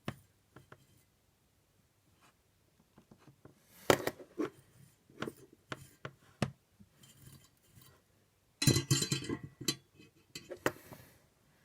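Small clicks, taps and clatter as soldering tools and wires are handled on a desk, with a busier run of clattering about nine seconds in.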